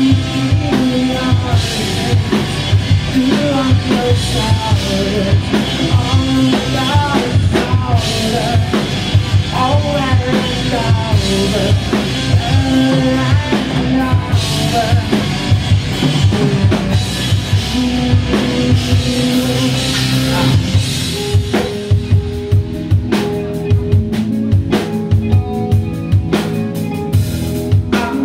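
Live rock band playing, led by a full drum kit with bass drum and snare over pitched instruments. About three-quarters of the way through, the sound thins to separate drum hits over a held note.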